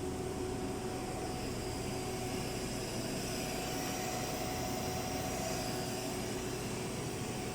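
Steady mechanical hum with a constant mid-pitched tone and a faint high hiss, from an Emmegi CNC machining centre for aluminium profiles running.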